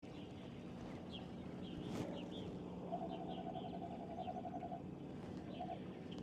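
Birds chirping and trilling in the background over a steady low hum, with one sharp click about two seconds in.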